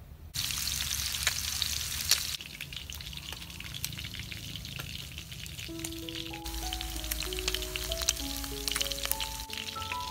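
Pieces of pork rib sizzling and frying in hot oil in a frying pan, with sharp clicks of metal tongs against the pan. The sizzle starts suddenly just after the start. A simple background melody of held notes comes in about halfway.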